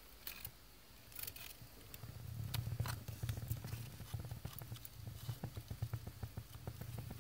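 Cedar kindling and newspaper catching fire: rapid crackling and popping over a low rumble, building from about two seconds in as the flames take hold and the fire draws.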